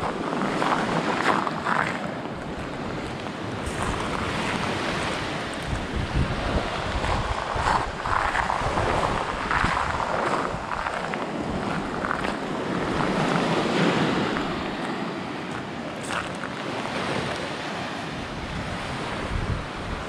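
Small waves breaking and washing up a sandy beach, the surf swelling and easing every few seconds, with wind rumbling on the microphone.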